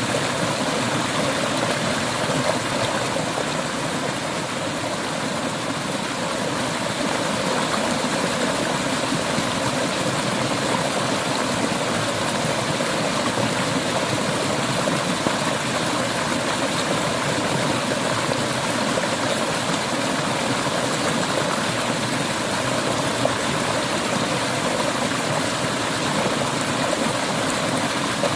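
Clear river water flowing and rushing steadily over stones, an even, unbroken sound.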